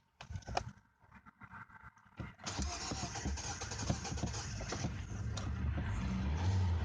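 A few clicks and knocks, then about two and a half seconds in the 2012 Hyundai Elantra's four-cylinder engine is cranked by the starter motor, turning over steadily without firing: a crank-no-start condition.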